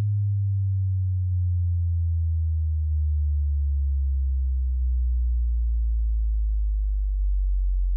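Very low electronic sine tone sliding slowly downward in pitch: a frequency sweep used to test a dog's hearing.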